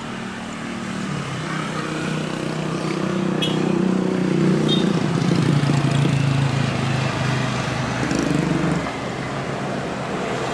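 Twin CFM56-7B turbofan engines of a Boeing 737-800 at takeoff thrust as the airliner rolls down the runway and lifts off. The steady jet noise grows to its loudest about halfway through, its low drone dropping slightly in pitch, and eases a little near the end.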